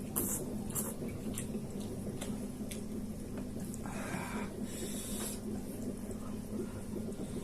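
Mouth noises of a person eating very spicy noodles: several short sharp sucking or sniffing sounds, then a longer one about four seconds in, over a steady low hum.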